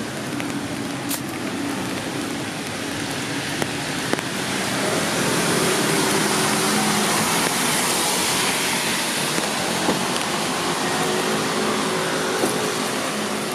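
Steady rain, with a car passing on the wet road: its tyre hiss swells from about four seconds in and slowly fades again near the end.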